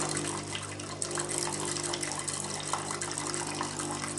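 Philips automatic coffee machine pumping hot water out of its milk-frother nozzle into a glass container: a steady pump hum with water running into the glass. This is the AquaClean filter activation flush.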